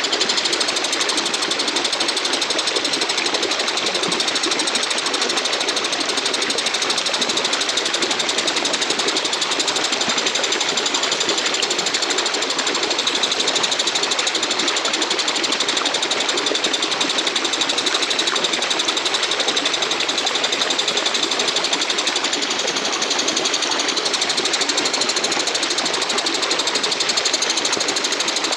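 A walang kecek katydid (bush cricket) singing: one steady, rapid, unbroken buzzing trill.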